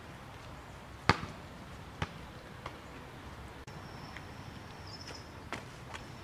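A basketball bouncing on paving stones: a sharp bounce about a second in, a second one a second later and a faint third, dying away. Near the end come a few lighter knocks, and in the middle a faint, high, steady whistle.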